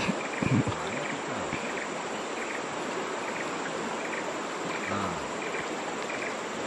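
Steady rush of a shallow river running over stones, with a short high chirp repeating about twice a second above it. Faint low voices come in briefly near the start and again about five seconds in.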